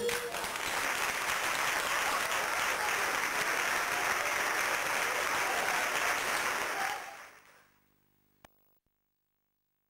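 Audience applauding steadily for about seven seconds, then fading out. After that comes near silence with a single sharp click.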